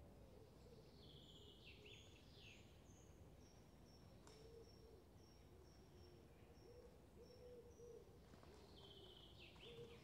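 Faint morning park ambience with birds calling: a phrase of descending whistles about a second in and again near the end, a string of thin high notes about two a second in between, and low cooing calls, over a steady low background rumble.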